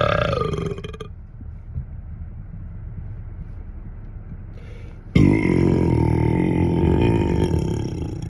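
A man's loud belches: one long burp tails off about a second in, then after a pause of about four seconds another starts suddenly and is held steady for about three seconds before fading.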